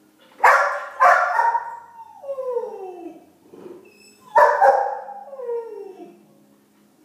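Dog barking and howling: two sharp barks trail into a long falling howl, then another bark about four seconds in falls away into a second howl. This is the distress vocalising of a dog left alone, a sign of separation anxiety.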